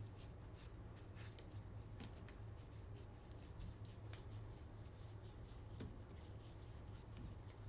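Faint ticking and rubbing of a stack of Donruss UFC trading cards being flipped through by hand, one paper-stock card sliding off the next, over a steady low hum.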